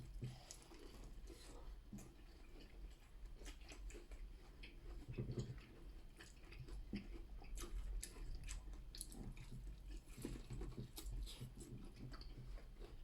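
Chewing and eating mouth sounds, many small wet clicks and smacks scattered irregularly, picked up by a close microphone at a seafood boil meal. A faint steady low hum sits underneath.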